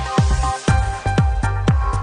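Electronic background music with a steady kick drum about twice a second under held synth chords.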